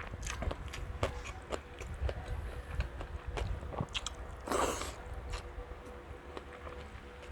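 Close-up crunching and chewing of crispy fried pork belly: a run of short sharp crackles and bites, with one louder, longer noisy crunch about halfway through.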